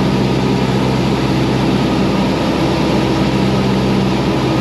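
Cessna 172's piston engine and propeller running steadily in flight, a constant drone heard inside the cockpit through the pilot's headset feed.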